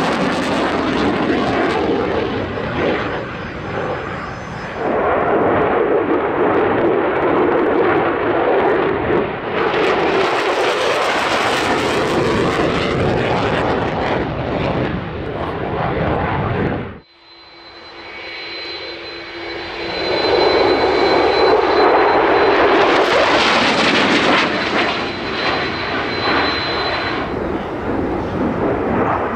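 Jet engine noise from military fighter jets flying past, an F-35 in the first part. About two-thirds of the way through the sound drops away suddenly. It then builds again, with a steady high whine in it, as an F-22 Raptor passes.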